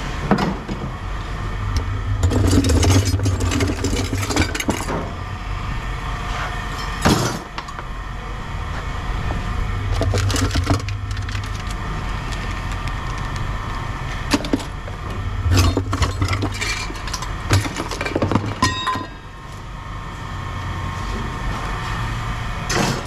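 Scrap metal clanking and knocking as pieces are handled and sorted, with many short sharp impacts over an intermittent low rumble.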